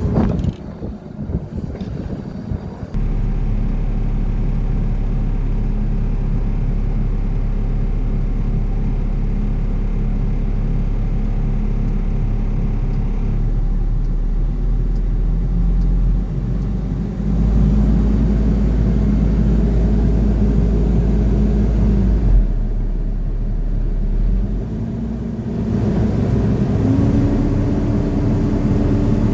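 Caterpillar 308D CR excavator's diesel engine running, a steady low drone that gets louder a few seconds in and again about halfway through, then dips briefly before picking up near the end.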